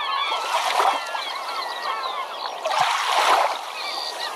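A flock of birds calling over one another in short rising and falling cries, with a swell of rushing water about three seconds in.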